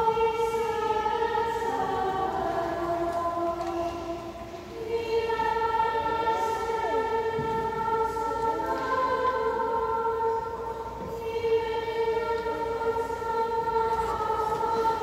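Small student schola singing Compline chant in unison, with slow, held notes moving step by step and short breaks between phrases, about four seconds in and again near eleven seconds. The voices ring in a large church.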